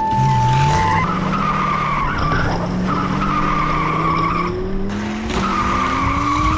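Race-car sound effect: a steady beep for about the first second, then engines revving slowly upward with tyres squealing on and off, as die-cast toy cars race down a plastic track.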